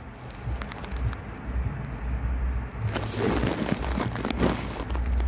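Handling noise from a hand-held camera being moved around close up: a low rumble with scattered small clicks and crackles, and a louder stretch of rustling from about three to four and a half seconds in.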